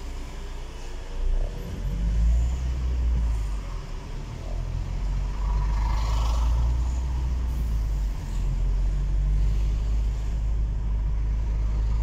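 Low engine and road rumble of a car driving in city traffic, heard from inside the car, with a brief higher-pitched sound about six seconds in.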